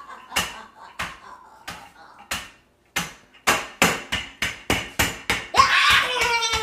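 Wooden rolling pin pounding Oreo cookies in a plastic zip-top bag on a wooden cutting board, crushing them into crumbs. The blows come at a slow, uneven pace at first, then quicken to about four a second after about three seconds. Near the end a child's voice cries out over the blows.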